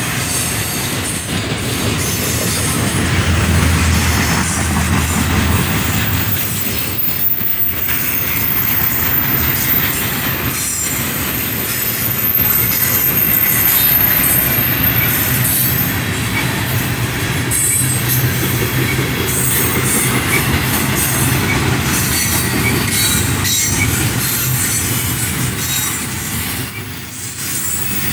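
Double-stack intermodal freight train rolling past at close range: a steady rumble and clatter of steel wheels on the rails. A thin, high-pitched wheel squeal rides over it for several seconds in the first half.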